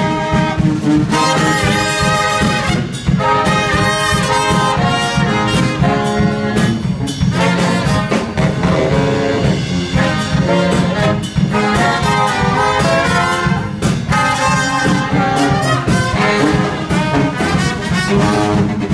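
Brass band playing live: trombone and saxophones carry the tune over a drum kit's beat.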